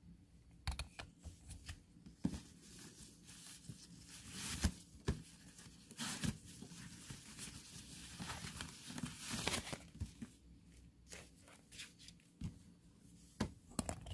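Packaging being torn open and handled during unboxing: tearing and rustling of wrapping, with sharp clicks and taps scattered throughout and the busiest tearing in the middle.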